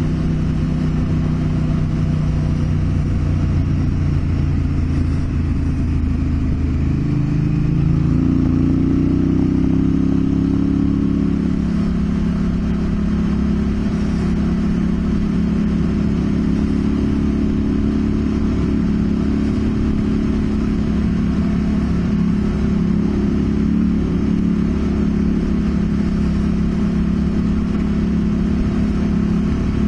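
Honda Africa Twin CRF1000L's parallel-twin engine running steadily while riding along a dirt track. About seven seconds in, the engine note rises and then holds at the higher pitch.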